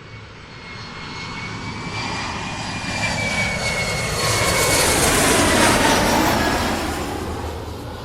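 A fixed-wing airplane flying past. It grows steadily louder as it approaches, is loudest about five and a half seconds in, then fades away as its whine drops in pitch.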